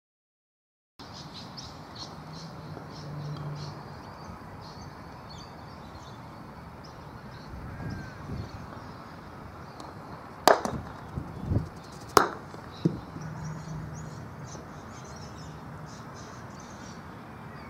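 Croquet mallet striking a ball: a sharp wooden clack a little past halfway, a second clack under two seconds later and a few softer knocks, over an outdoor background with birds chirping.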